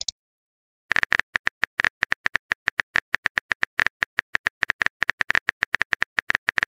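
Phone keyboard key-tap click sound effect from a texting-story app, typing a message: a fast, even run of short clicks, about eight a second, starting about a second in.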